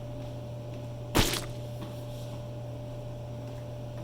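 Steady electrical hum, with one sharp knock a little over a second in.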